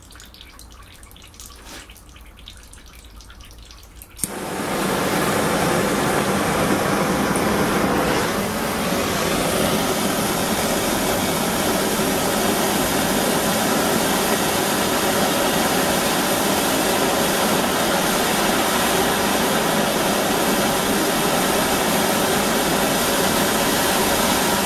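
Faint trickling of water, then a gas blowtorch lit with a sudden start about four seconds in, hissing steadily as its flame heats a copper tee joint for soldering, with water still running through the pipe.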